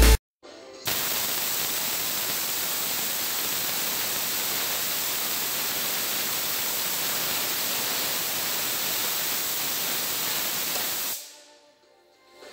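Steady hiss of compressed air escaping from a 24-litre homemade air compressor's tank as its pressure falls. It starts abruptly about a second in and fades out near the end.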